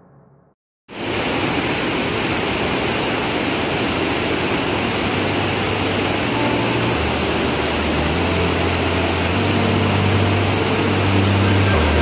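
A waterfall in spate, with white water pouring over rocks and a concrete wall, makes a steady, dense rush. It starts abruptly about a second in after a brief silence. About halfway through, low sustained music notes come in beneath it and change pitch every second or two.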